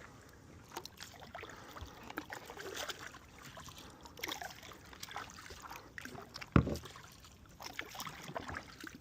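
Kayak paddle strokes in calm water: irregular splashes and dripping trickles, with one loud knock about two-thirds of the way through.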